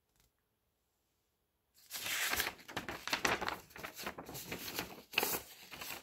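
Sheets of paper rustling and crinkling for about three seconds as they are handled and swapped, after about two seconds of near silence.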